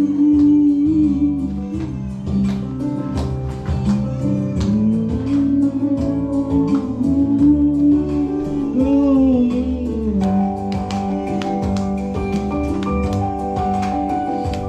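Karaoke music playing: a guitar-led backing track with steady chords under a gliding melody line.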